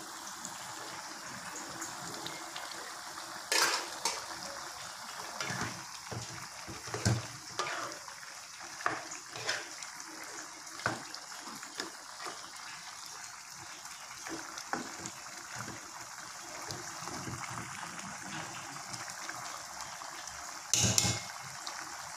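Food frying in a pan with a steady sizzle, while a metal spatula stirs it and knocks and scrapes against the pan now and then, with one louder clank near the end.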